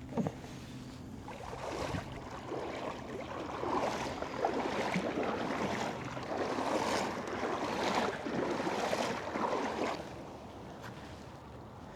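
Water sloshing and splashing around a kayak in uneven swells for several seconds, easing off near the end.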